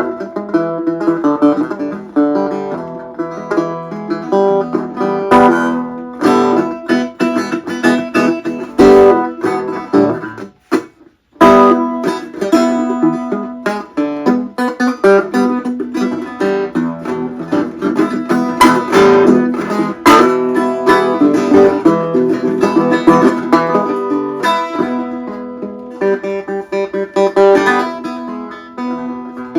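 Dobro resonator guitar being played: a steady run of plucked notes, with a short pause about ten seconds in before the playing resumes.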